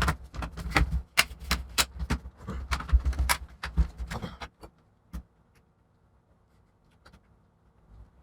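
Plastic clicks and knocks of a Lenovo G50-70 laptop's top case being fitted and snapped onto its bottom case: a dense run of clicks for about four and a half seconds, then a few single clicks.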